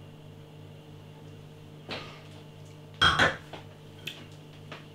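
Stemmed beer glass set down on a hard kitchen counter after a sip: a sudden short clatter about three seconds in, with a small click a second later. A faint steady hum runs underneath, and a soft noise comes about two seconds in.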